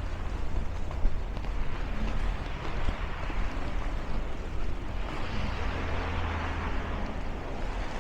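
Snowstorm wind buffeting the microphone: a steady low rumble under a rushing noise, with a louder hiss swelling about five seconds in and easing near the end.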